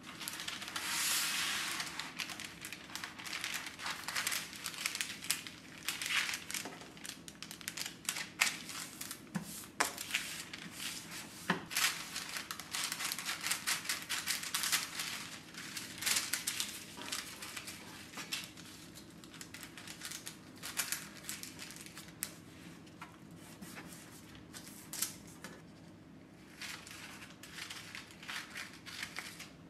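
Parchment baking paper rustling and crinkling as it is pulled from its box and cut with scissors into squares. The crisp paper noise comes in uneven bursts, with sharp snips of the blades.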